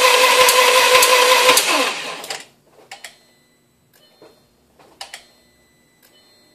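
Audi B5 S4's 2.7-litre twin-turbo V6 being cranked by its starter motor, a steady whine with even pulses, without catching. About two seconds in the cranking stops and the starter winds down, followed by a few faint clicks.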